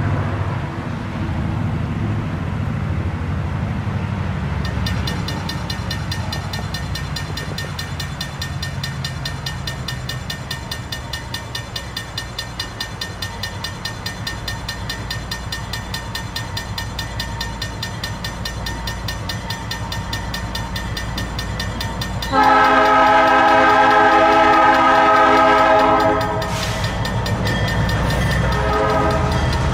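Morristown & Erie MP15DC diesel switcher approaching with its EMD 12-cylinder two-stroke engine rumbling, while a grade-crossing bell rings in quick, even strokes. About two-thirds of the way in, its Nathan P3 air horn sounds one long chord of about three and a half seconds, then a shorter blast near the end.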